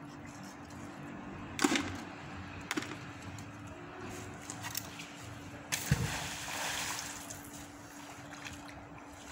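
Fishing magnet on a rope thrown into a river, hitting the water with a splash about six seconds in that washes on for a second or so. A sharp knock comes earlier, about a second and a half in.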